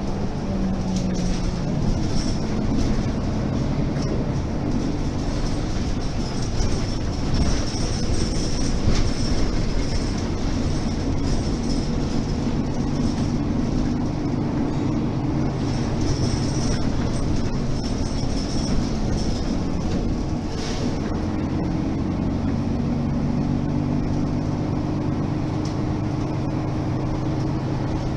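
Interior ride noise of a 2008 Mercedes-Benz Citaro G articulated bus with a ZF Ecomat automatic gearbox: the diesel engine and driveline rumble steadily, with the engine note rising and falling as it pulls, and the cabin fittings give a few short rattles.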